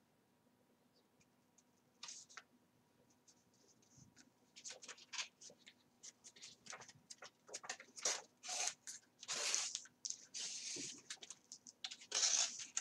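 Thin card pages being handled and thread being pulled through their stitching holes during coptic-stitch book binding: irregular scratchy rustles and longer swishes, sparse at first and coming thick and fast from about halfway.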